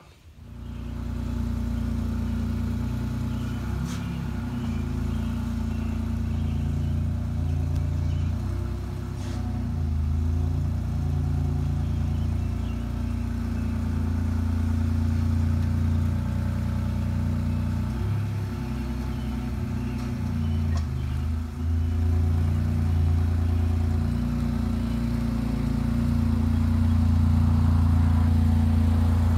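Buick Grand National's turbocharged V6 running at idle through a 3-inch Pypes exhaust with Dynomax Super Turbo mufflers, a steady deep rumble with small changes in pitch as the car rolls slowly. It grows a little louder near the end.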